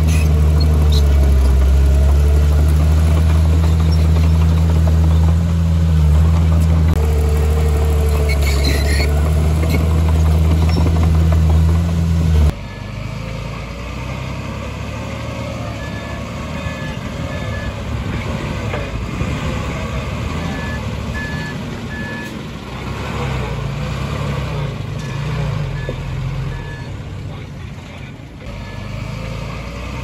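Heavy diesel construction machinery running: a loud, steady engine note close by for the first twelve seconds or so, then a sudden change to quieter engine noise with a reversing alarm beeping in several short spells.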